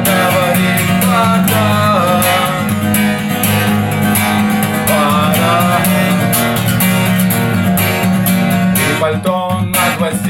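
Acoustic guitar strummed in steady chords, with a gliding melody line over it; near the end the strumming turns into sharper, separate strokes.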